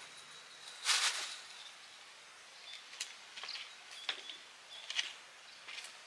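Sparse soft clicks and rustles from a kitten moving about and eating from a plastic food bowl, over a quiet outdoor background. The loudest rustle comes about a second in, and single clicks follow every second or so.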